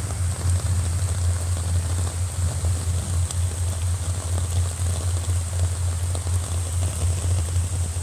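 Rain falling into a muddy puddle, a steady hiss with faint scattered drop ticks, over a constant low rumble.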